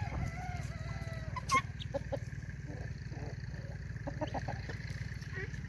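Soft clucks and calls from a mixed flock of chickens and guinea fowl feeding on the ground, with a drawn-out call in the first second or so, over a steady low hum.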